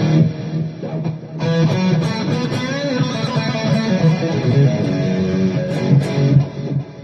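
Electric guitar played through the Donner Arena2000 multi-effects pedal's amp and cabinet modelling: sustained notes and chords, with a brighter new phrase coming in about a second and a half in and some bent notes after it.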